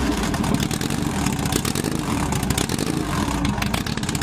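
Turbocharged Honda Civic's four-cylinder engine pulling hard under acceleration, heard from inside the cabin, with a dense crackle of sharp clicks over the engine note.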